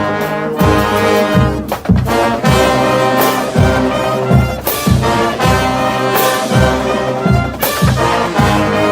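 A college marching band playing: brass with trombones and trumpets carrying sustained chords over a steady bass-drum beat of about two hits a second.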